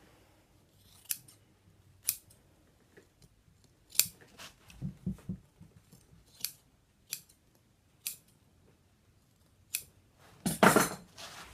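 Upholstery shears snipping through polyester batting, one short crisp snip every second or so, about eight in all. A louder burst of cutting and handling comes near the end.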